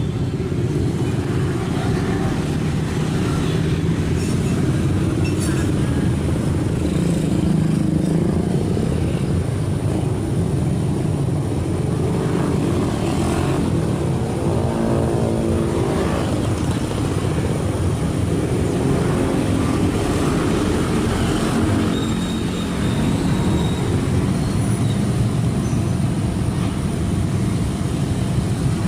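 Kobelco SK75 excavator's diesel engine running steadily under working load, with a brief whining tone that comes and goes around the middle.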